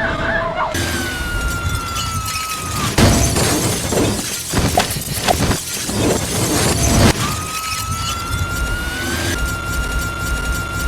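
Film sound effects: a steady high electronic tone, broken about three seconds in by some four seconds of crashing and shattering with many sharp hits, after which the tone returns.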